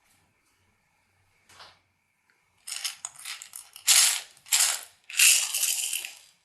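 Slime being squeezed and pressed by hand, giving a run of crackling clicks and pops in four bursts, the last one the longest.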